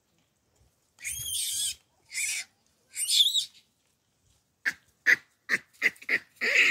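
Baboons calling: three shrill, wavering calls in the first half, then a quick run of short calls, about three a second, near the end.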